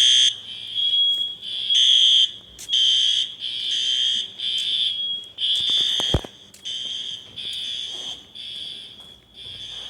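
System Sensor fire alarm horn strobes sounding in repeated short blasts about once a second, set off by a faulty heat detector. A brief knock about six seconds in.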